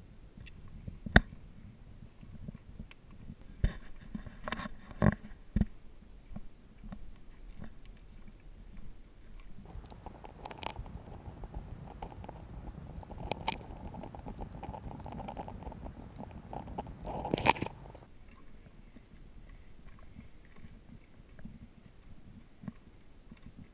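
Hiking footsteps crunching on loose shale rock, with scattered sharp clicks and knocks. The loudest knock comes about a second in, and a rougher rustling stretch runs through the middle.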